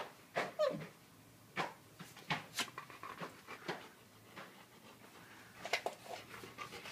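Dogs vocalizing, an Alaskan malamute and a small dog: a string of short, sharp sounds, one about half a second in falling in pitch, and a quick cluster near the end.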